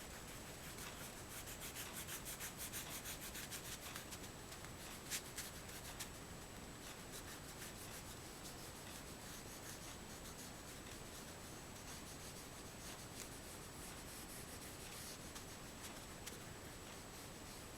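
Oil pastel rubbing over the drawing in quick rhythmic strokes, about six a second, for the first few seconds, then softer scratching with two sharp taps about five and six seconds in. A faint steady high whine runs underneath.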